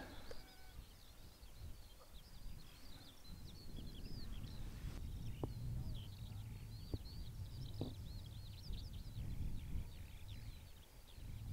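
Small birds chirping and singing, many short, high arching notes in quick succession, over a low, steady rumble of wind.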